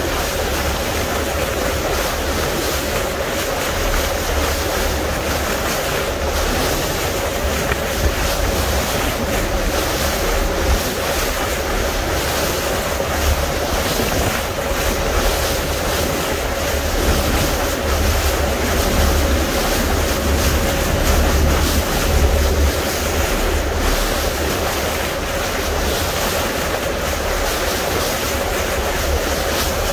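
Small boat under way: a steady engine hum with water rushing along the hull and wind buffeting the microphone in low gusts.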